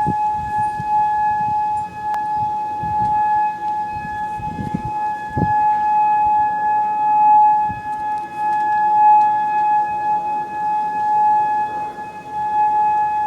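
Tornado warning siren sounding a steady, unwavering tone, its loudness swelling and fading. A few low rumbles come and go near the middle.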